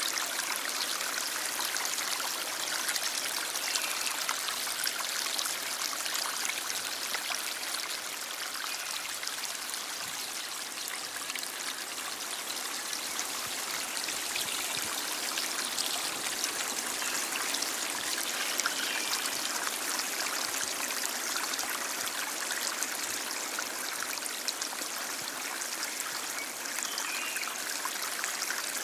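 A stream of water flowing steadily: an even, unbroken wash of moving water, mostly high and bright with hardly any low rumble.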